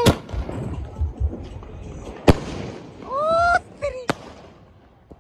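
Diwali fireworks and firecrackers going off: three sharp bangs, one right at the start, one a little after two seconds and one about four seconds in.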